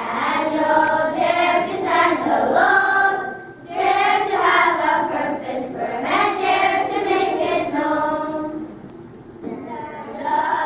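A group of children singing together as a choir, in long held phrases with a short pause about three and a half seconds in.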